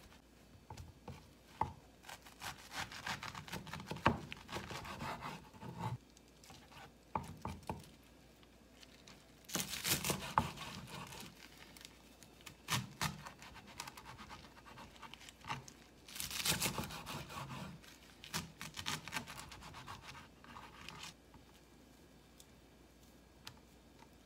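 A chef's knife cutting enoki mushrooms and garlic chives on a wooden cutting board. It comes in several bouts of slicing strokes, with a few sharp knocks of the blade on the board, and rustling as the mushrooms are handled and pulled apart.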